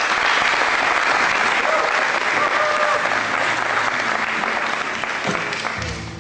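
Audience applauding loudly, the clapping fading out near the end as low notes of live music come in.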